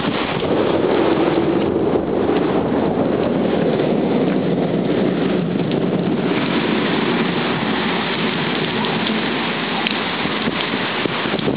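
Heavy rain pouring steadily in a thunderstorm, turning brighter and hissier about halfway through.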